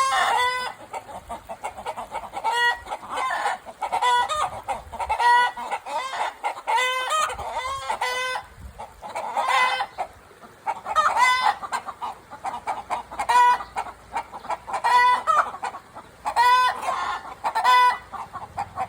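Chickens clucking and calling over and over: short pitched calls in quick runs, with brief pauses between them.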